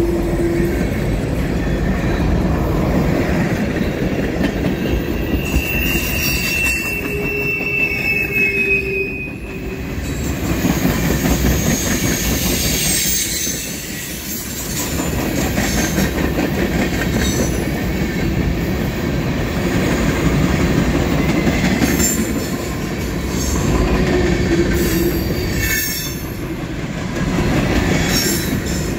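A freight train's cars rolling past at close range: a steady rumble of steel wheels on rail with clacking over the rail joints. A high wheel squeal rings out several seconds in, and a shorter, lower squeal comes near the end.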